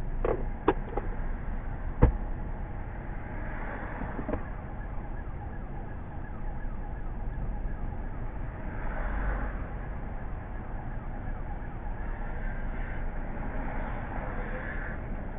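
A vehicle engine idling steadily, heard from inside the cab, with a few sharp clicks in the first couple of seconds and a louder single knock about two seconds in.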